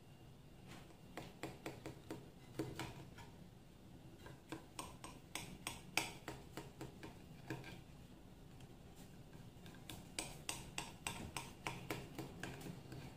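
Knife cutting through a soft baked cake in a glass baking dish, the blade clicking and tapping against the glass in irregular runs of sharp clicks, three bunches of them.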